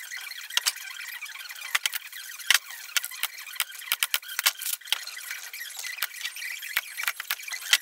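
A stapler and a pin nailer driving staples and pins into a plywood cabinet carcass, giving a quick, irregular series of sharp snaps.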